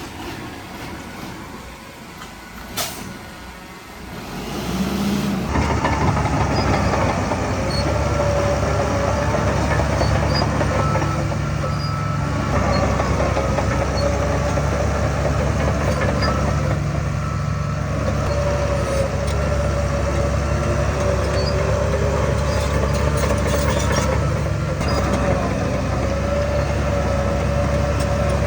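A sharp click about three seconds in, then a heavy diesel earthmoving machine's engine comes up loud about five seconds in and keeps running steadily, with a wavering whine above the engine sound.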